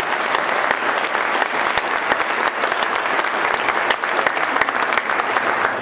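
A large audience applauding: many hands clapping steadily, dying away right at the end.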